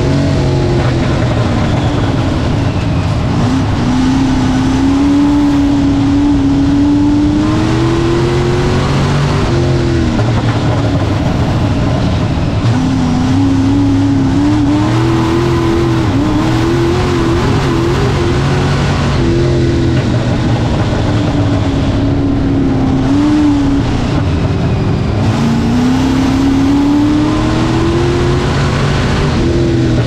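Dirt-track stock car's engine heard from inside the cockpit at racing speed, running between about 4,800 and 5,900 rpm. Its pitch climbs in long swells and drops back roughly every ten seconds as the driver accelerates and lifts around the oval.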